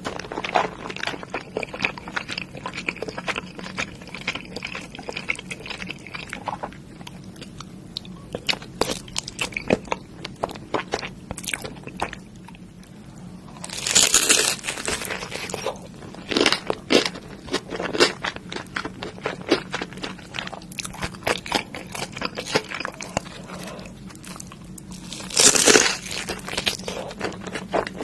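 A person biting and chewing crunchy food close to the microphone: continual crackling chews, with louder crunching bites about halfway through and near the end.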